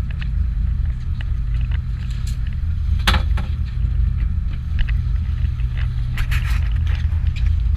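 Boat engine running with a steady low rumble, with a few short clicks and knocks over it, the sharpest about three seconds in.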